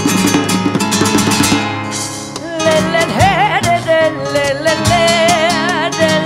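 Flamenco guitar strummed fast with sharp percussive taps. About two and a half seconds in, a woman's voice comes in over it, holding long notes with wide, heavy vibrato and bending pitch in the pansori (Korean traditional) singing style.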